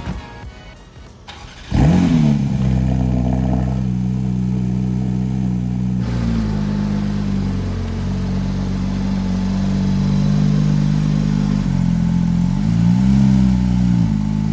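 Porsche 992 GT3's 4.0-litre flat-six starting about two seconds in, flaring up and settling into a steady idle. Near the end it gets one short blip of the throttle, the pitch rising and falling.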